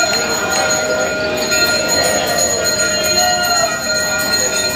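Temple bells ringing steadily during the morning aarti, a continuous ringing with several held tones.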